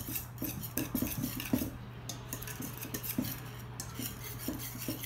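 Wire whisk clinking and scraping against a stainless steel mixing bowl while thick cookie batter is stirred, in a run of quick, irregular strokes.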